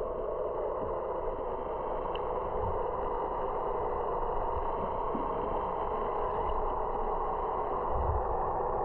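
Steady, muffled underwater noise picked up by a GoPro camera submerged in its waterproof housing, with a faint low rumble underneath.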